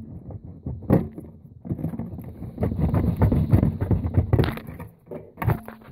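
Wiring-loom connectors being pulled off a fruit machine motherboard by hand: a run of irregular plastic clicks, knocks and cable rattling, busiest in the middle, with a sharper knock about a second in.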